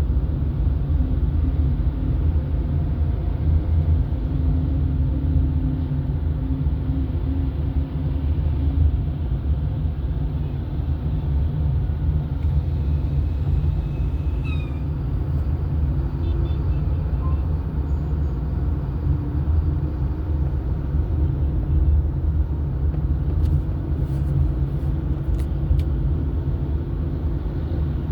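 A car driving along the road: a steady low rumble of engine and road noise.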